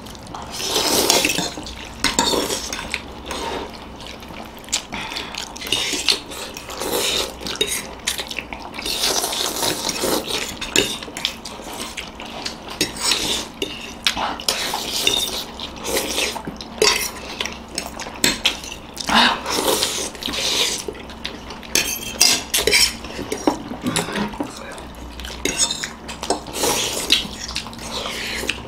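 Forks clinking and scraping on ceramic plates while several people slurp soupy noodles quickly. The clicks and short slurps come thick and fast, on and off throughout.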